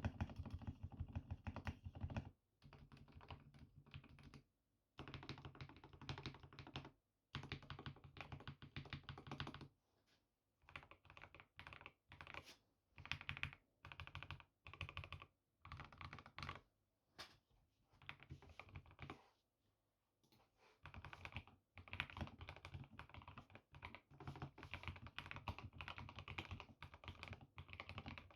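Typing on a GK64X mechanical keyboard with lubed Gateron CJ switches, lubed stabilizers and KBDfans Sakura keycaps: runs of quick key presses a few seconds long, broken by brief pauses.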